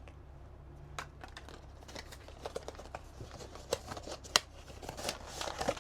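A small cardboard blind box being handled and opened by hand: scattered light clicks and taps of card and packaging, with one sharper snap about four and a half seconds in.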